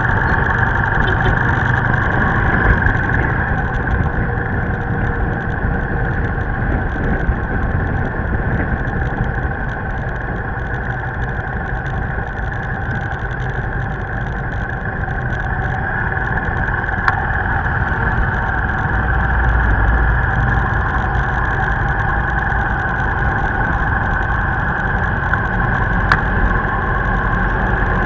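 Vehicle engine running steadily at road speed, mixed with road and wind noise and the engines of surrounding motorbikes. A heavier low engine rumble swells near the end as a truck draws alongside.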